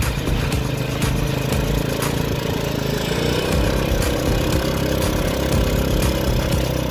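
Small vehicle engine running steadily, heard from on board. Its note rises a little about three seconds in and then holds, over a steady hiss.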